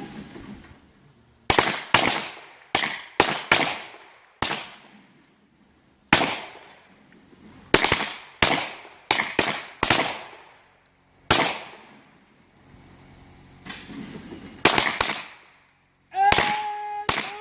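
Revolver shots on a shooting range, over a dozen sharp reports at irregular intervals, some in quick groups of two or three, each with a short echo. Near the end a long steady pitched tone sounds.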